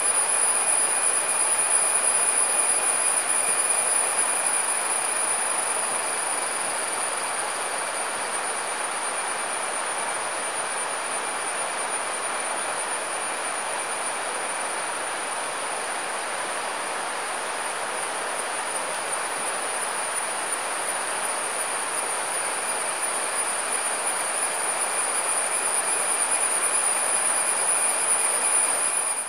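A steady, high-pitched insect drone over the continuous rush of a nearby stream.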